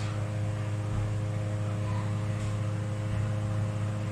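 Kitchen exhaust fan running with a steady low hum and several fainter steady tones above it.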